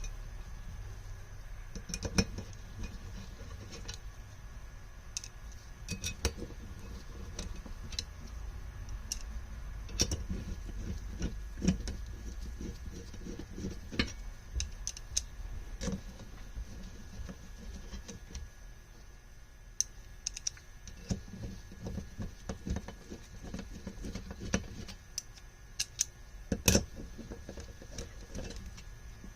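Irregular small metallic clicks and taps of screws, a screwdriver and carburetor parts being handled as the carburetors are screwed loosely onto their rack, over a low steady hum.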